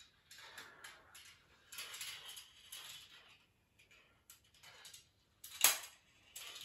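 Marbles rolling and rattling along the tracks of a GraviTrax marble run: an uneven run of rolling hiss and small clicks that thins out midway, then one sharp clack about five and a half seconds in.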